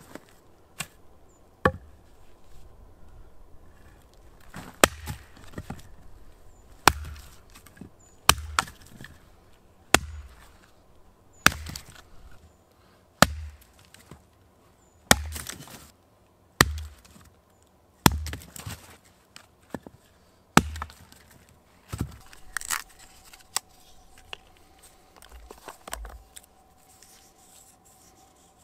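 An axe chopping a green wood branch resting on a tree stump, with sharp strikes about one every one and a half seconds. The strikes stop about three-quarters of the way through.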